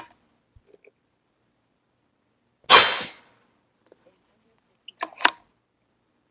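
AirForce Texan SS .308 big-bore PCP air rifle firing one shot about three seconds in: a single sharp report that dies away within half a second. A couple of quick, sharp clicks follow about two seconds later.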